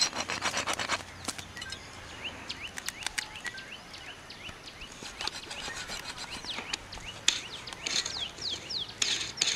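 Small birds chirping, many short falling chirps that come thicker in the second half, with a burst of rapid crackling in the first second.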